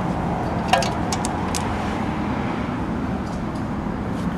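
Steady background noise of road traffic, with a few faint clicks about a second in.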